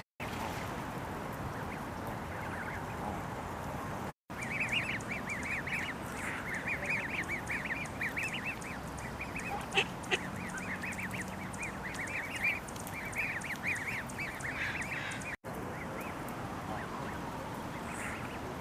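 Canada goose goslings peeping: a dense chorus of quick, high chirps that starts about four seconds in and stops near the end, with a few louder calls among them. Before and after the chorus there is only a faint steady background.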